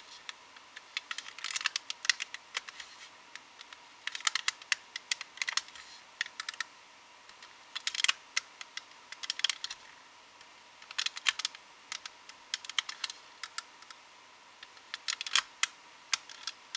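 A metal hook clicking and scraping against the pegs of a plastic loom as rubber loom bands are lifted off and pulled over them, in clusters of quick small clicks with short pauses between.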